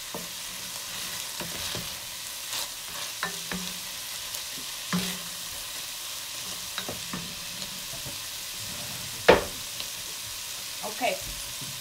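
Peas and onion sizzling in an enamelled cast-iron pot, stirred with a wooden spoon that scrapes and clicks against the pot. A loud knock about nine seconds in, as the spoon is set down in the pot.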